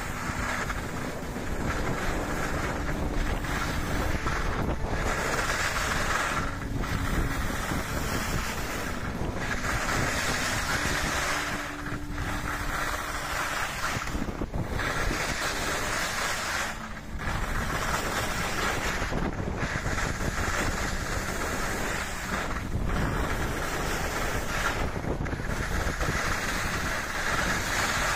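Skis hissing and scraping over a groomed piste during a downhill run, with wind rushing over the microphone. The scraping swells and eases with each turn, about every two to three seconds.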